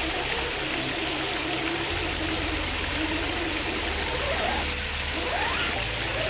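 Water from a small waterfall running steadily over rock, with the electric motor of an RC rock crawler whining underneath; the whine rises in pitch twice in the second half as the truck works up the rock face.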